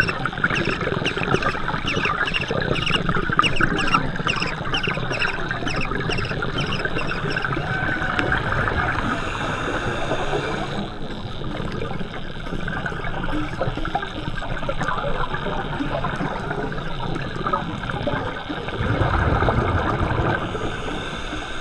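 Scuba divers' exhaled bubbles heard underwater, a continuous muffled bubbling and gurgling. A regular ticking runs through roughly the first seven seconds, and a louder, deeper rush of bubbles comes a little before the end.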